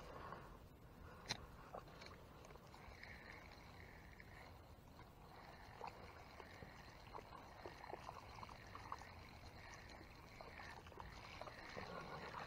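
Quiet handling of a spinning rod and reel: a sharp click about a second in, then scattered faint ticks as the reel handle is cranked, over a low water noise.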